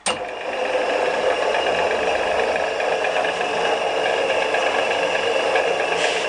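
Freshly rebuilt VSN R-20 drill press started up, its three-phase electric motor and drive coming on suddenly and then running at steady speed with an even hum and a whine. It runs in the correct direction, the phases wired right.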